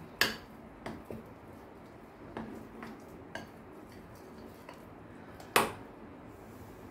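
A utensil clinking and knocking against a glass mixing bowl as dough is stirred: a handful of separate, irregular taps, the loudest just after the start and another about five and a half seconds in.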